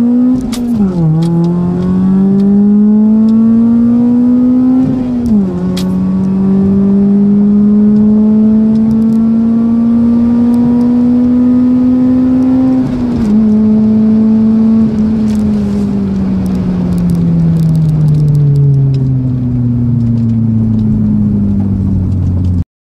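Toyota Altezza's Beams 3S-GE four-cylinder engine heard from inside the cabin on a full-throttle quarter-mile run. Its pitch climbs through the gears, with upshifts about a second in, about five seconds in and about thirteen seconds in. From about fifteen seconds in the pitch falls steadily as the car slows, and the sound cuts off suddenly near the end.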